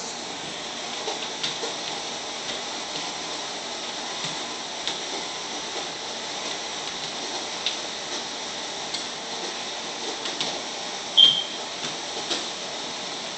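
Steady hiss of room noise with scattered faint clicks, and one short high chirp about eleven seconds in.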